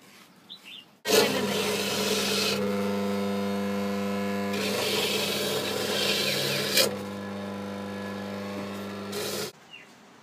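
Electric coconut grater running with a steady motor hum while coconut meat is pressed against its spinning grating head, giving a loud rasping scrape that swells twice. The sound cuts in about a second in and cuts off near the end.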